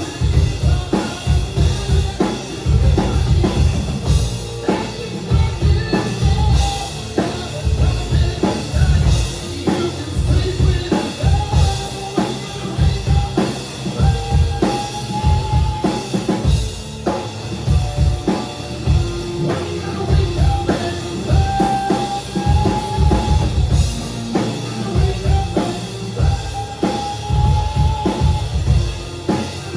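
Live rock band playing loudly, led by a drum kit with pounding bass drum and snare hits in a steady beat, and held notes from other instruments above it.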